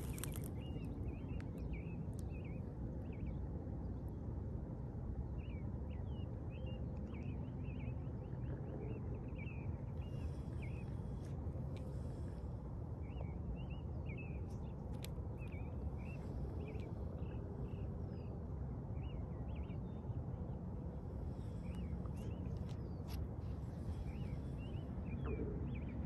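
Small birds chirping again and again in short, high notes over a steady low rumble. A few faint clicks come in the middle and near the end as a spinning reel's handle is unscrewed and handled.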